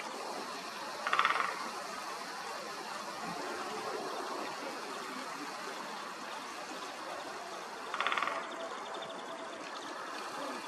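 Woodpecker drumming on a branch: two short, rapid rolls about seven seconds apart, each lasting about half a second, over a steady background hiss.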